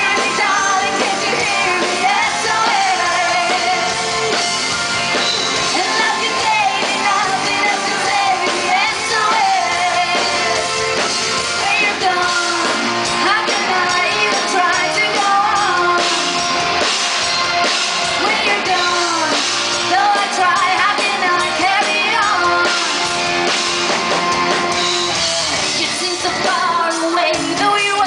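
Rock band playing live with a woman singing lead over electric guitar, bass guitar and drum kit, loud and without a break.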